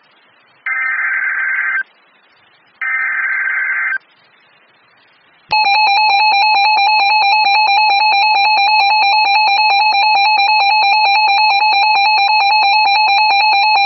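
Emergency Alert System SAME header data bursts: two raspy digital bursts about a second long, a second apart, ending a set of three. About five and a half seconds in, the steady two-tone EAS attention signal starts and holds.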